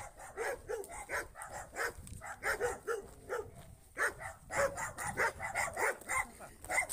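Dogs barking rapidly and repeatedly, about two or three barks a second, with brief pauses between runs.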